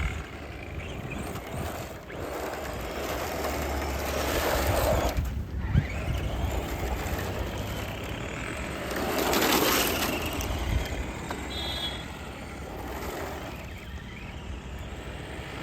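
Arrma Senton short-course RC truck being driven: its electric motor and tyres rise and fall in level as it runs about, loudest about four and ten seconds in.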